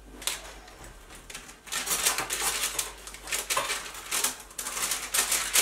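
Stainless-steel spatula scraping and clicking against a parchment-lined metal baking tray as it slides under thin, crisp oat cookies to lift them off. Fairly quiet at first, then a quick run of crisp scrapes and taps from about a second and a half in.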